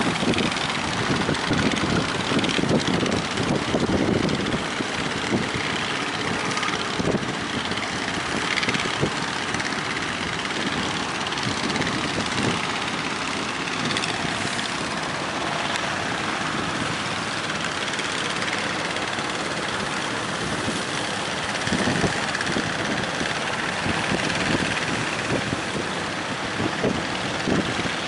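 Strong wind at sea, with a steady rushing noise and low gusts buffeting the microphone that are heaviest at the start and again near the end.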